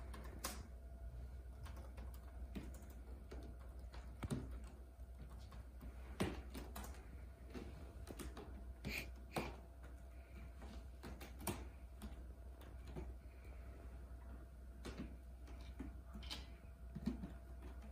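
Persian cat's claws scratching and catching on the rope wrapping of a scratching post: irregular short scratches and clicks, with a few louder ones around the middle.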